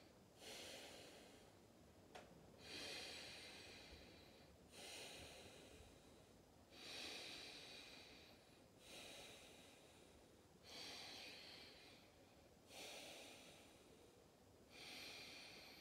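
Faint, slow, audible breathing of a person holding a yoga pose, one breath sound about every two seconds. Each breath starts sharply and tails off.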